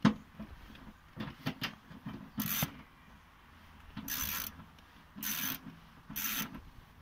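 Ratchet wrench loosening the 10 mm seat-mounting bolt. A few clicks and knocks come first, then, from about two and a half seconds in, four short bursts of ratcheting roughly a second apart.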